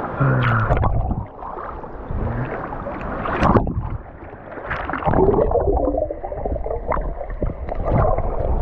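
Sea water splashing and sloshing unevenly around someone wading in the shallows.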